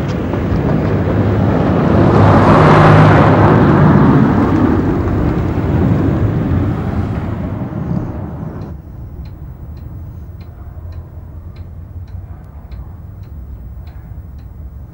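A loud passing vehicle rushes past, swelling to a peak about three seconds in and fading until it cuts off suddenly near nine seconds. A quiet steady ticking follows, a little under two ticks a second.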